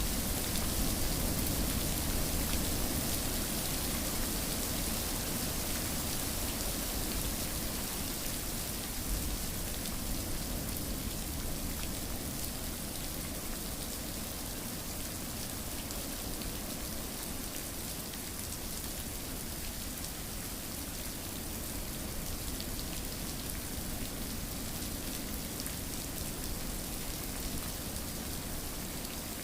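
Steady rainfall: an even hiss of rain with many small drop ticks, a little louder in the first few seconds.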